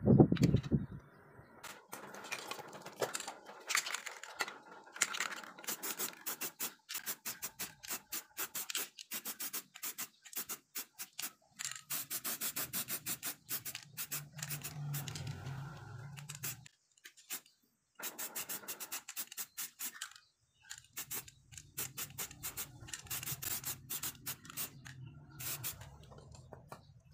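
Small steel parts and hand tools being handled on cardboard: a long run of clicks, clinks, scrapes and rubbing of sheet metal. A faint low hum comes in twice.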